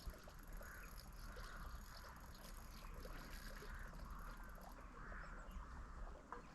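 Faint outdoor background with a bird calling over and over: soft, rounded notes repeated steadily, about one every two-thirds of a second.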